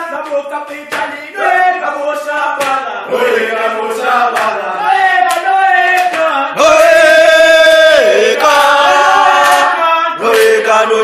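A group of voices singing a revolutionary chant together, with a regular beat of sharp knocks running under it. A loud voice holds one long note a little past the middle.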